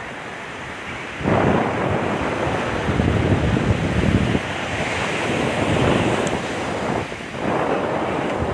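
Ocean surf rushing onto a sandy beach, with wind buffeting the phone's microphone; the noise rises sharply about a second in.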